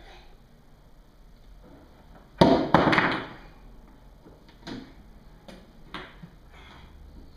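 Clatter of toy kitchen things handled by a small child: a loud, sharp clatter of several quick knocks about two and a half seconds in, then a few lighter single knocks.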